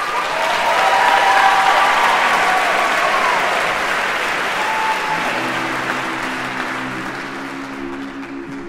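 Audience applauding and cheering with a few whoops, dying down gradually. About five seconds in, the a cappella group starts a sustained sung chord under the fading applause.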